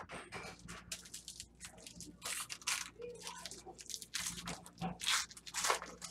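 Trading-card pack wrappers crinkling and tearing as packs are ripped open by hand, in a quick, irregular run of crackles.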